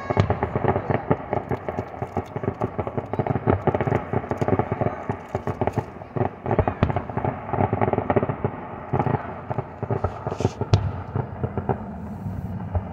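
Aerial fireworks display: shells bursting with booms and a dense run of crackling pops, thinning out near the end.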